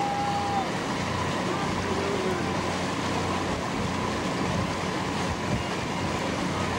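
Steady hum of a motor launch's engine under way, with wind and water rushing past the microphone aboard.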